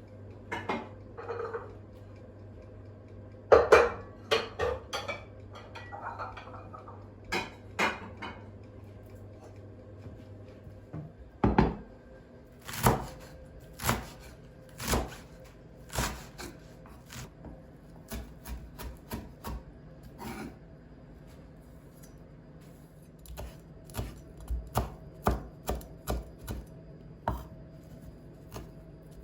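Kitchen knife chopping on a cutting board: irregular knocks with pauses between, picking up into a quicker run of cuts near the end.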